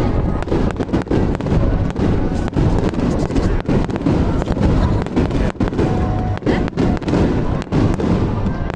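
A rapid barrage of aerial fireworks: many bangs and crackles in quick succession over a continuous low rumble.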